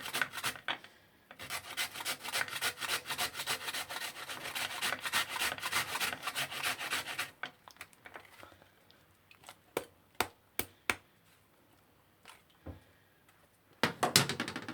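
Rapid, continuous scraping strokes of a knife working a raw turnip, with a brief pause about a second in. The scraping stops about halfway, a few light sharp clicks and taps follow, and near the end there is a short clatter of dishes.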